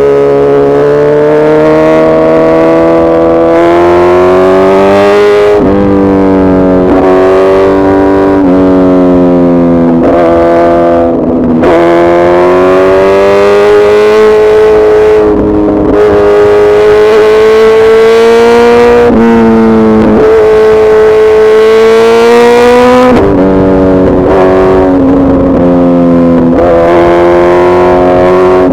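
Suzuki Hayabusa Gen3's 1340 cc inline-four engine running steadily and loudly. Its pitch slowly rises and falls, with sudden breaks every few seconds where the note jumps.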